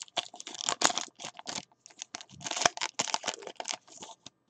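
A trading-card pack's wrapper being torn open and crinkled by hand: a run of short, irregular crackles and rustles.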